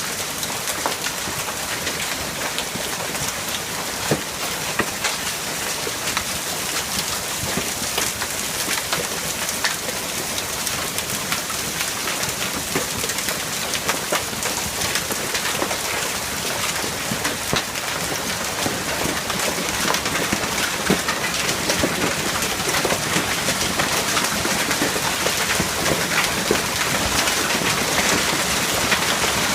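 Hailstorm: hailstones and rain pelting down, a dense, steady patter of countless small hard ticks over a hiss, getting a little louder in the second half.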